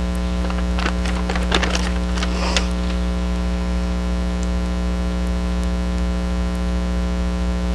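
Steady electrical hum in the recording, with a few light clicks and rustles of handling in the first three seconds.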